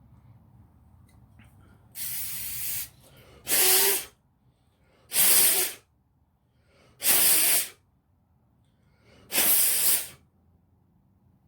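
A person blowing hard by mouth into a solvent-soaked ratchet head to clear out the cleaner in place of compressed air: five short, moist puffs of air, the first softer than the rest.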